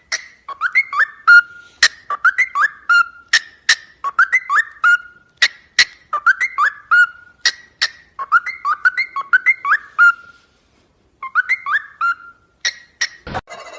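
Parrot whistling the same short phrase of three or four quick chirping notes over and over, about once a second, with sharp clicks between phrases and a brief pause near the end.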